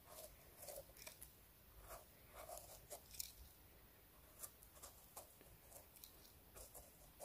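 Faint, irregular scraping and soft crunching of a curved knife blade paring soil from the firm stem of a king bolete (porcini).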